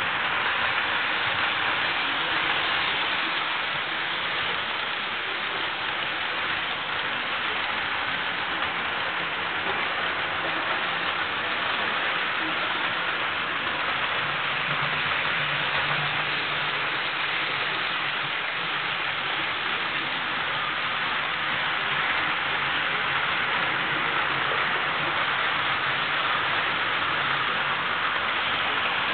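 HO-scale model trains running on the layout's track: a steady, even rushing whir of small motors and wheels on rail.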